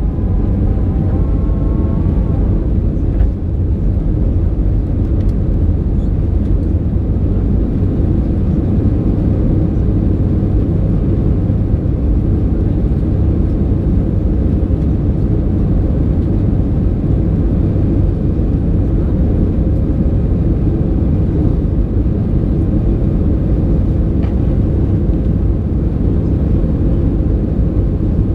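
Cabin noise of an Airbus A319 in its climb just after takeoff: a steady, deep rumble of the jet engines and rushing air, heard from a window seat beside the wing.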